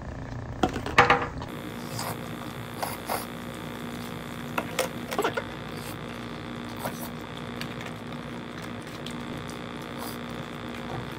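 Scattered light clicks and taps of small objects over a steady electrical hum.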